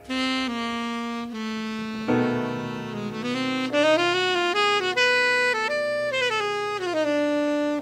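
Background music: a melody of held notes, changing pitch every half second or so, over a steady accompaniment.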